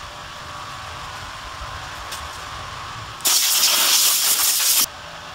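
Compressed-air blow gun giving one blast of about a second and a half, starting about three seconds in and cutting off sharply, over steady shop background noise.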